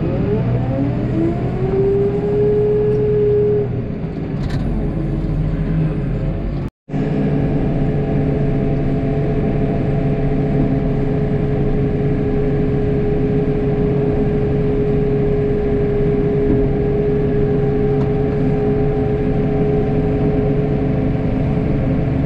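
Snowplow vehicle's engine running, its pitch rising over the first two seconds and then holding steady. The sound cuts out for an instant about seven seconds in, then the engine runs on at a steady pitch.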